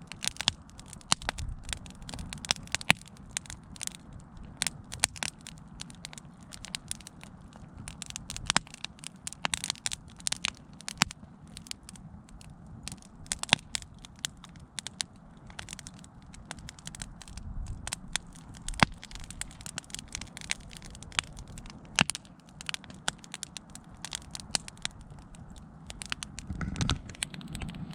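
Wood fire crackling: irregular sharp pops and snaps over a low, steady rumble.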